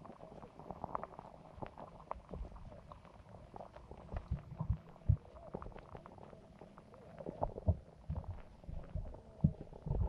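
Muffled underwater sound in a carp and goldfish pond: a scatter of irregular small clicks and low gurgling thumps, with several louder thumps in the second half.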